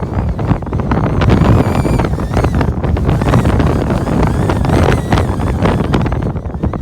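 Strong wind, gusting to about 19 metres per second, buffeting the microphone with a heavy, uneven rumble.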